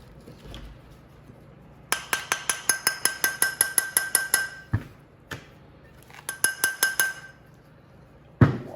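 Rapid ringing clinks of a hard object being tapped, about six or seven a second for two and a half seconds, then a shorter run of the same after a pause. A dull knock falls between the runs and a louder knock comes near the end.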